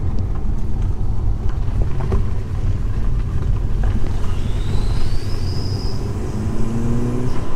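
Audi A4 wagon driving, heard from inside the cabin: a steady low rumble of engine and road noise. Past the middle a high whistle rises and holds, and near the end the engine note climbs as the car speeds up.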